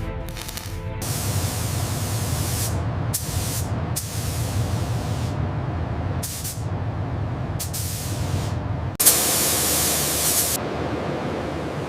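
Repeated bursts of hissing spray, switching on and off over a low rumble. A louder, longer hiss starts suddenly about nine seconds in.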